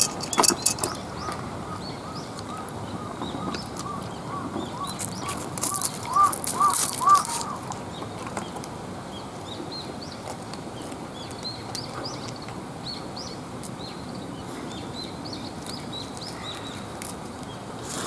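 A bird calling in a run of short, evenly repeated chirps, about two to three a second, growing louder before stopping about seven seconds in, with a few clinks at the start; fainter, higher bird chirps follow.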